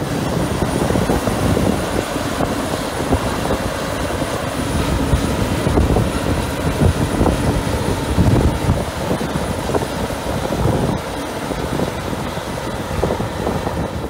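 CLAAS Lexion 530 combine harvester running under load while cutting and threshing barley: a steady, loud mechanical drone of engine, header and threshing drum.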